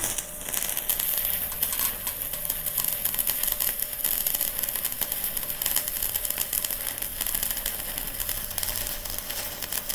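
Stick-welding arc crackling and sizzling steadily as a 2 mm electrode runs a bead on thin steel at 40 amps, DCEN. The arc is struck right at the start and burns without a break. The low current and thin rod are chosen to keep the thin base metal from burning through.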